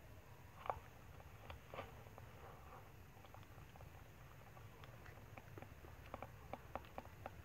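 Faint scattered clicks and light taps over a low steady hum, with one louder click early and a quicker run of clicks near the end.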